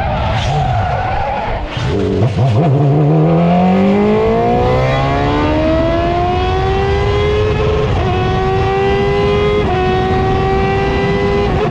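F1000 formula car's engine heard onboard during a spin: tyres scrub and the revs drop low, then the engine climbs steadily in pitch as the car accelerates away, with two brief dips for gear changes about eight and ten seconds in.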